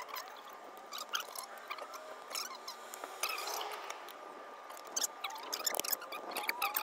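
Fast-forwarded time-lapse audio of brake work: squeaky, chipmunk-like sped-up chatter with rapid clicks and clinks of tools and parts, busier near the end.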